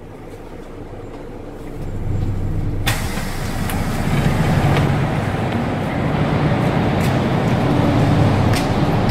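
Pneumatic air doors of a Scania L94UB Lahti Scala bus opening with a sudden hiss about three seconds in. After that comes a louder steady low rumble of bus engines idling, with a few sharp clicks.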